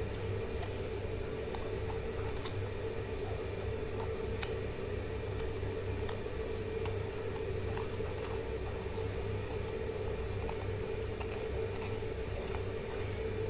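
A steady machine hum runs throughout, with faint scattered light clicks and taps as zucchini are handled.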